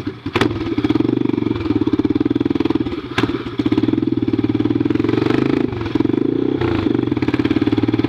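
Honda NX Falcon's single-cylinder engine running loud through an open exhaust with the muffler removed, as the motorcycle is ridden. The note is an even, rapid pulsing, with a few brief dips as the throttle comes off.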